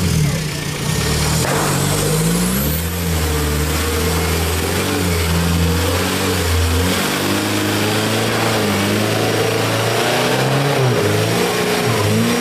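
Diesel off-road 4x4's engine revving hard under load, its pitch repeatedly rising and falling as the throttle is worked.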